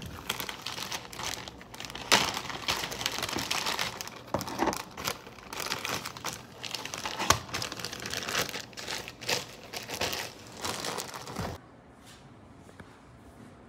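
Clear plastic bag crinkling and rustling as it is handled and opened, with many sharp crackles. It stops abruptly about two seconds before the end.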